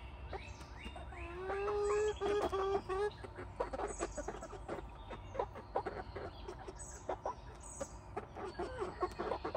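Hens clucking close up: a drawn-out, even-pitched call from about one to three seconds in, then a run of short clucks and quick clicks.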